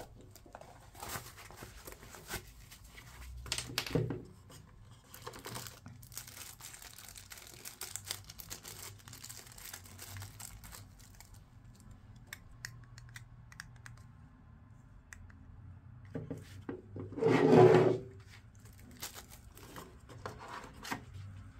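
Unboxing handling noise: a drawstring fabric pouch being pulled shut, a small plastic bag crinkling between the fingers, and items shifting in a cardboard box with tissue paper, in scattered rustles and light knocks. A louder rustle lasting about a second comes past the middle.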